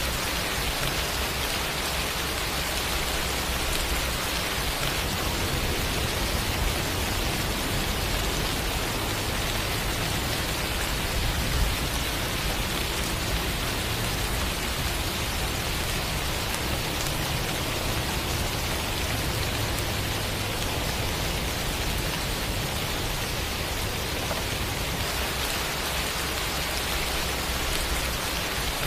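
Steady rain falling on a surface, with a low rumble underneath through the middle stretch.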